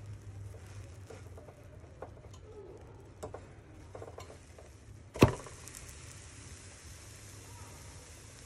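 A spatula scraping and clicking against the frying pan as it works under a pancake, then one sharp slap about five seconds in as the pancake is flipped and lands back in the pan. After the flip, a faint steady sizzle as the uncooked batter side meets the hot pan.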